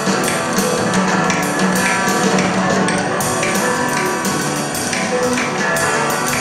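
Live band playing: an electric guitar with hand percussion (shakers and struck wooden sticks) keeping a steady beat of regular strikes over sustained pitched notes.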